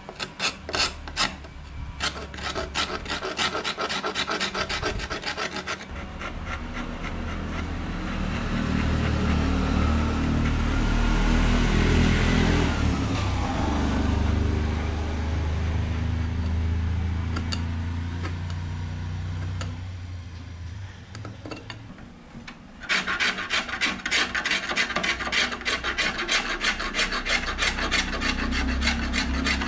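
Sandpaper worked by hand over the flaking old paint of a turned wooden cot post, in fast back-and-forth rasping strokes. For a stretch in the middle the separate strokes blur into a steadier rubbing sound, then the quick strokes return.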